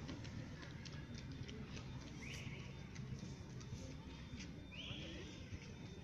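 Faint outdoor background: a low steady rumble with scattered light ticks, and two short high chirps about two and a half seconds apart.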